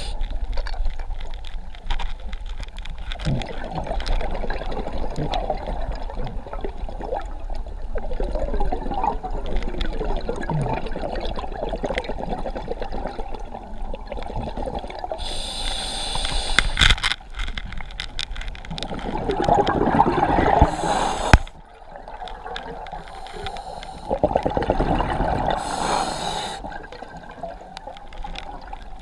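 Scuba diver breathing through a regulator underwater: short hissing inhalations and louder bursts of bubbling exhaust, two strong breath cycles in the second half, over constant gurgling bubble noise.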